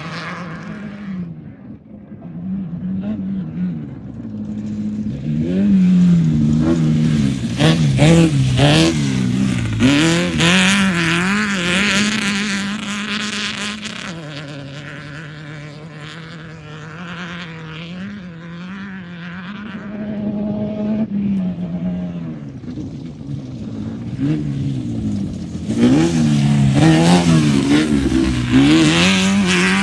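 Off-road race vehicle engines revving up and down with the throttle. The sound swells louder and fades away twice, loudest from about six to thirteen seconds in and again near the end.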